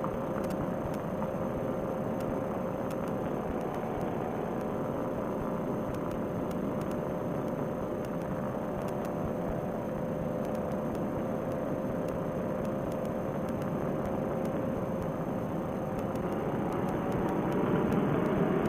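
Paramotor trike's engine and propeller droning steadily in flight, with rushing air. Near the end the engine note rises slightly and grows louder as more throttle is given.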